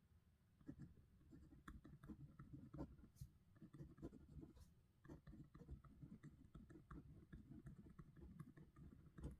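Pen writing on paper: faint, irregular scratching strokes with small ticks as the pen lifts and touches down.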